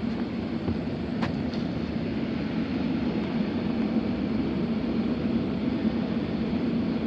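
Steady whirring hum of an HVAC air handler's blower running, with a sharp click about a second in and a fainter one just after.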